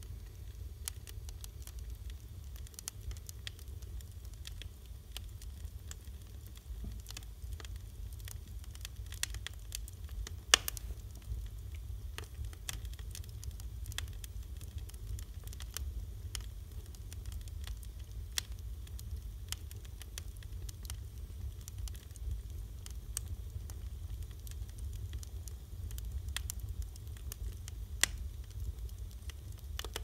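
Wood fire burning in a fireplace: logs crackling and popping with frequent sharp snaps over a steady low rumble, the loudest pops about ten seconds in and near the end.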